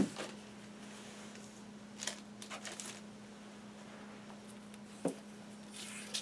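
Cardboard LP jackets and sleeves being handled: a knock right at the start, then a few light taps and paper rustles as one record is slid away into a box set and the next, in shrink-wrap, is drawn out. A faint steady hum sits underneath.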